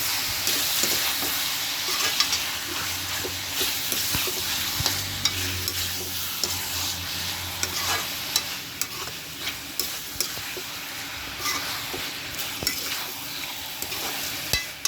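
Chicken liver sizzling in oil in a kadai as it is stirred, with a steady frying hiss and frequent sharp clicks and scrapes of the spoon against the pan.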